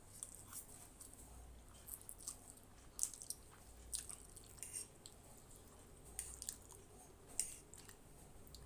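Close-miked chewing of Maggi masala instant noodles: soft, irregular wet smacks and clicks of the mouth, a few every second.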